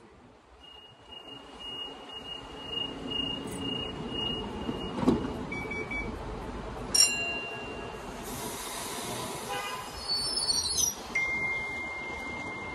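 Sydney Trains double-deck electric train at the platform with its doors closing. A pulsing warning tone sounds for several seconds, then there are knocks as the doors shut and a hiss of air. Near the end a steady whine starts up as the train gets ready to pull out.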